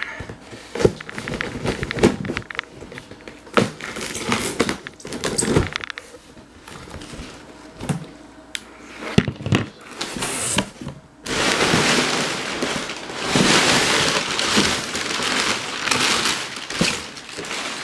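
A large cardboard shipping box being handled and opened: scattered knocks and scrapes of the cardboard, then from about eleven seconds in a long stretch of rustling and scraping as the box is worked open.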